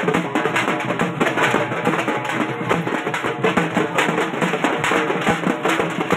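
A street band of strapped drums, a side drum and a large bass drum among them, beaten in a fast, unbroken rhythm.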